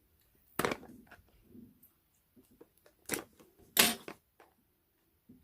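Sharp cracks and clicks of a sealed smartphone box being forced and torn open by hand: three louder snaps, about half a second in, about three seconds in and, loudest, just before four seconds, among softer ticks and rustling.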